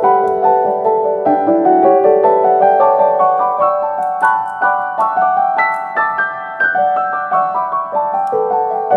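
Background piano music: a gentle melody of struck notes moving up and down.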